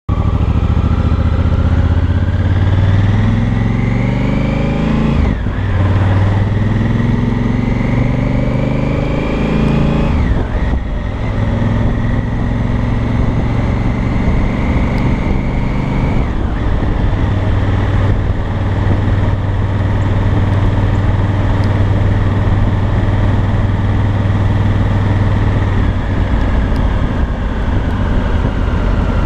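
2018 Honda Africa Twin Adventure Sports' parallel-twin engine and exhaust, heard from the saddle on a slow ride. The engine pulls up in pitch twice, dropping sharply at each upshift about five and ten seconds in, then runs at a steady, even speed.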